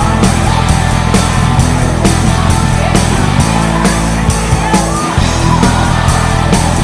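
Background rock music with a steady, driving drum beat.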